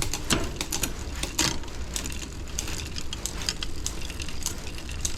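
Bicycle drivetrain on a 1990s Trek Singletrack turned by hand: the chain runs over the chainrings and sprockets with irregular mechanical clicking, as the front derailleur is tried after a limit-screw adjustment.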